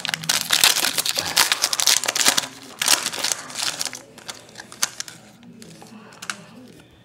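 Trading card pack wrapper being torn open and crinkled by hand, dense crackling for about four seconds, then quieter with a few scattered rustles and clicks as the cards are handled.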